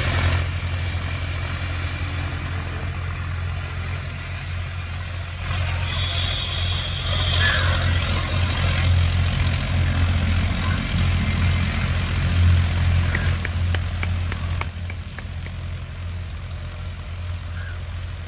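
John Deere 5105 tractor's three-cylinder diesel engine running steadily under load while pulling a disc harrow, a low drone that swells slightly partway through.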